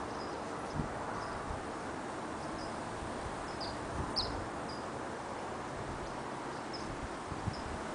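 Small birds chirping: short, high chirps scattered irregularly over a steady background noise, with a few soft low thumps.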